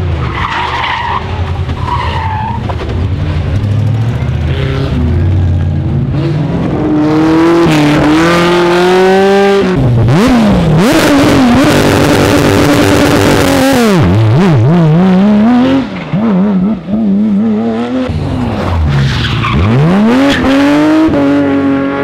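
Rally cars driven flat out, one after another, engines revving up and dropping through gear changes and lift-offs, among them a Porsche 911 GT3's flat-six. Tyres skid loudly through the middle stretch, and the engine note cuts out briefly twice near the end as the throttle is lifted.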